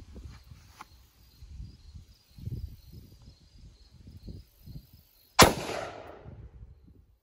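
A single shot from an AR-15 rifle firing a .223 round, about five seconds in: a sharp crack that trails off over a second or so. Before it there is only low rumbling.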